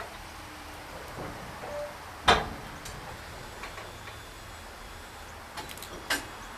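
A steady low rumble with two sharp knocks: a loud one about two seconds in and a softer one near the end, with a few faint ticks just before the second.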